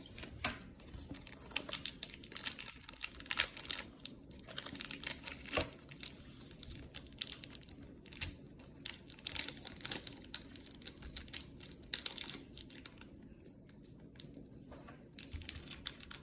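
Plastic snack wrappers crinkling and rustling as they are handled, with many irregular small crackles and clicks.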